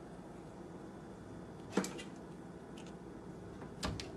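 Two sharp knocks about two seconds apart, the first the louder, over a faint steady low hum.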